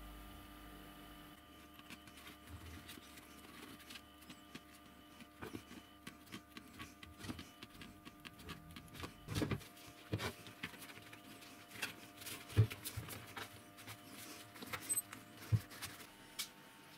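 Scissors snipping and hands handling a rubber bicycle inner tube being fitted around a plywood wheel: a scattered run of small clicks, snips and rubbing, with a few louder knocks, over a faint steady hum.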